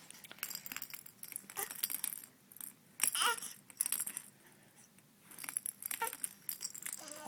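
Small hard objects jangling and clattering in short bouts, shaken or banged about, with brief baby vocal sounds about three seconds in and again near six seconds.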